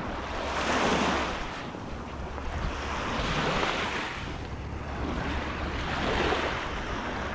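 Small Lake Ontario waves washing onto the shore, three surges a few seconds apart, with wind rumbling on the microphone.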